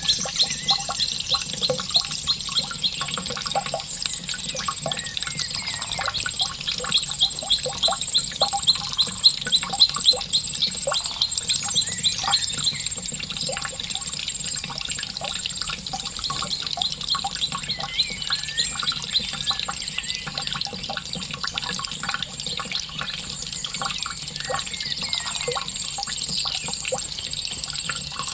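Trickling, dripping water with a small bird chirping in a fast, even series that fades out about halfway through.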